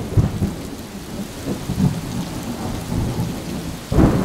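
Thunderstorm sound effect: steady rain with rolling thunder, swelling louder near the end.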